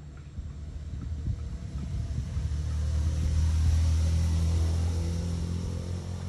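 A motor vehicle passing by: a low engine rumble that swells to its loudest around the middle and then fades away.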